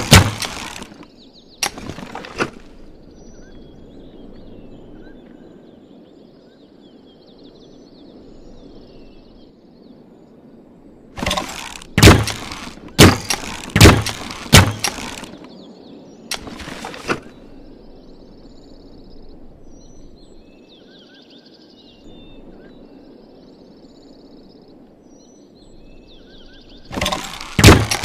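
Bamboo repeating crossbow shooting in quick bursts of sharp cracking clacks, several shots in a row, with long pauses between the bursts. Faint birds chirp in the pauses.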